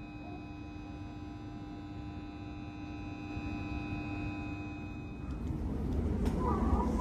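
Steady electrical hum with several held tones from a JR East E531-series electric train standing at a platform. About five seconds in it gives way to a louder low rumble inside the train, with a few light knocks near the end.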